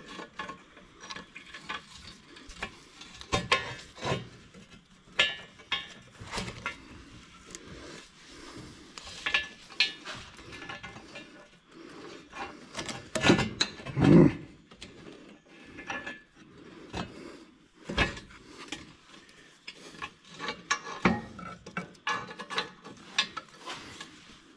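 Hand tools clinking, scraping and knocking on the metal of a tractor's exhaust manifold as it is bolted back on with new gaskets. The loudest knocks come a little past the middle.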